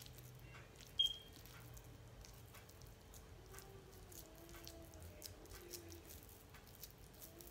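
Faint squishing and soft clicks of a hand squeezing and pressing sticky grated-carrot ladoo mixture on a plate. A brief, sharp high beep sounds about a second in.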